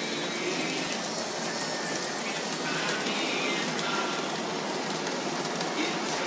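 Bachmann large-scale Pennsylvania model steam locomotive and its cars running past on floor track: a steady rushing rattle of wheels on rails and the running gear.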